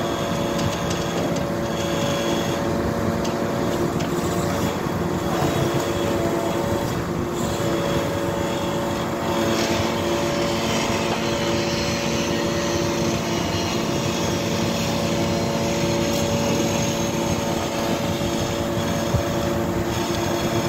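A heavy truck's diesel engine running steadily at a constant speed, driving the hydraulics of its truck-mounted knuckle-boom crane while the crane works.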